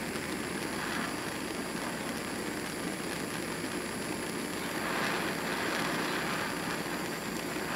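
Small handheld propane torch burning steadily, a constant rush of flame noise, swelling slightly about five seconds in, as it heats a copper battery-cable lug for soldering.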